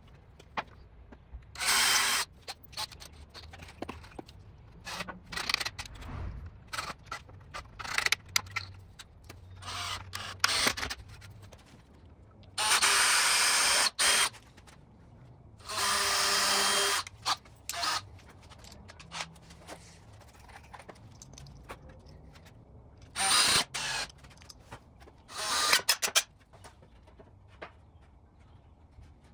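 Cordless DeWalt drill running in five short bursts, the two longest about a second and a half each, drilling and driving screws to fasten pallet-wood shelves to the side frames. Knocks and clicks of boards being handled fall between the bursts.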